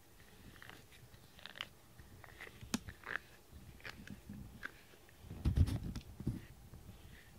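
A cat nuzzling and bumping against the camera, with scattered small clicks and fur rustling on the microphone, and a short run of louder low knocks about five and a half seconds in.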